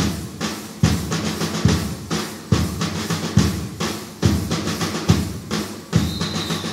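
Lezim dance accompaniment: a large drum beating a steady rhythm with a heavy stroke about every 0.85 s, while many lezims (wooden bars strung with small metal discs) clash and jingle in unison between the beats. A short high tone sounds near the end.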